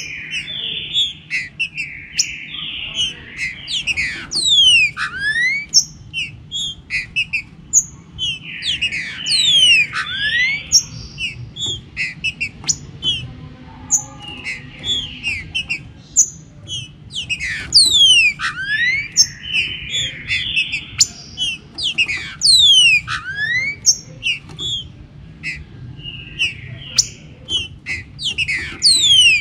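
Green-winged saltator (trinca-ferro) song: bouts of loud whistled phrases that come and go every few seconds, among many quick sweeping chirps. A faint low steady hum lies underneath.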